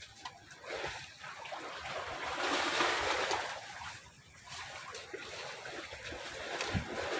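Water sloshing and splashing, swelling twice into a rushing wash, with a short knock near the end.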